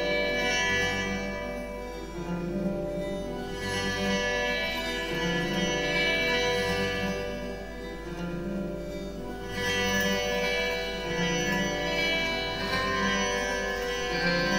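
Instrumental music: plucked strings over steady, sustained droning tones.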